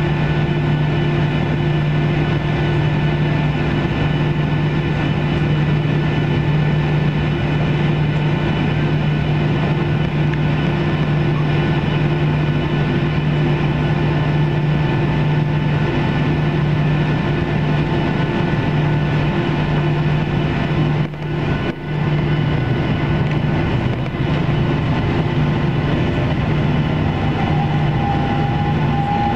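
Cabin noise of a Boeing 737-700 taxiing: the steady hum and whine of its CFM56-7B engines at low thrust, unchanging in pitch. The sound dips briefly twice about 21 seconds in.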